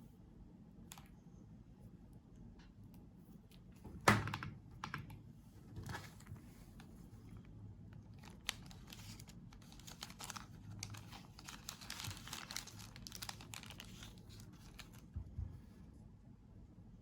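Handling of a mechanical keyboard and its packaging: a single sharp knock about four seconds in, then scattered clicks, and later a longer stretch of rustling with clicks in it.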